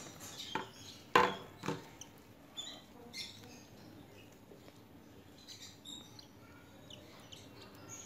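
Newborn cockatiel chick giving short, high, thin peeps while being hand-fed through a thin tube, with a few sharp knocks of handling during the first two seconds.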